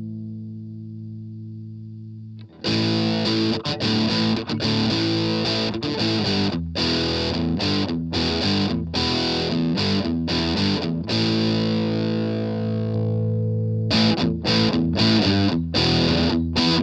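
Electric guitar played through an MXR Custom Badass '78 Distortion pedal. A held distorted chord fades for the first couple of seconds, then loud distorted riffing begins. Near the end it turns to short, choppy chords with brief gaps between them.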